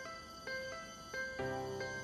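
Background music: a light, bell-like melody of short notes changing about four times a second, with a fuller chord about one and a half seconds in.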